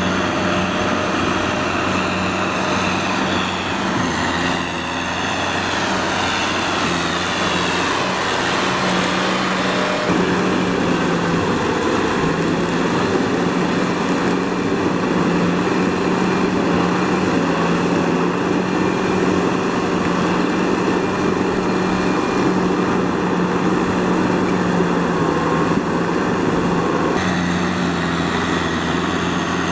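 Kubota M6040SU tractor's four-cylinder diesel engine running steadily under load, pulling a rotary tiller through deep wet mud.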